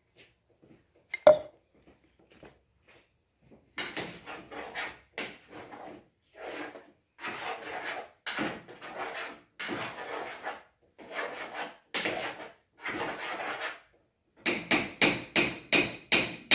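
A spoon stirring and scraping in a cooking pot on the stove: a run of rasping strokes about one a second, turning quicker near the end, after a single sharp knock about a second in.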